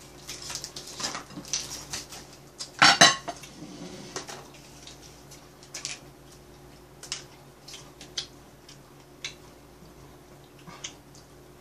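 Chopsticks and tableware clinking: scattered small clicks against plates, with a louder clatter about three seconds in.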